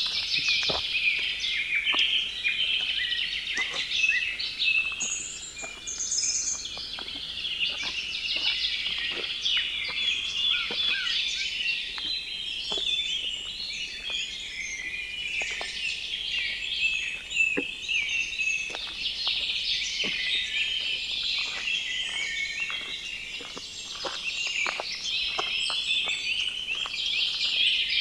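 Forest birds singing in a busy chorus, with footsteps crunching steadily along the trail.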